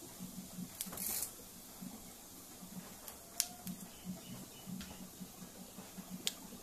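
Whole cumin seeds frying in hot mustard oil in a kadai: a quiet sizzle with scattered sharp crackles and pops, the sharpest about three and a half and six seconds in.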